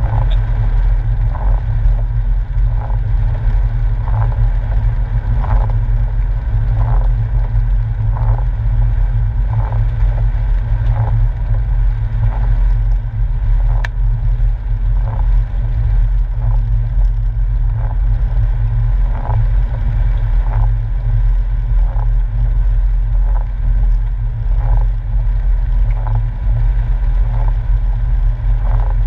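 Porsche 997 driving on a wet road, heard from inside the cabin as a steady low drone, with the windscreen wipers swishing across the glass about every one and a half seconds.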